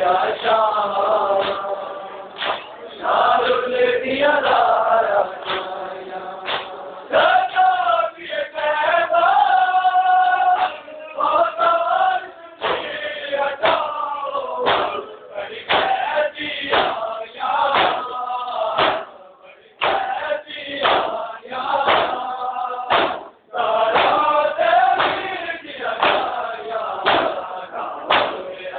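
A large group of men chanting a noha, a Shia Muharram lament, in chorus, with sharp hand slaps of matam (chest-beating) in time with the chant.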